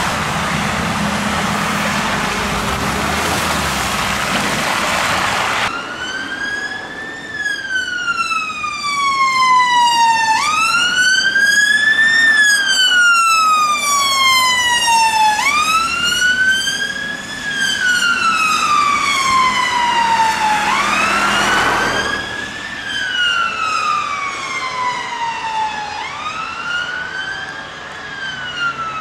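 Tyres hissing through wet slush on a road for the first few seconds. Then, from about six seconds in, a UK ambulance siren on wail, each cycle rising and then falling more slowly over about five seconds.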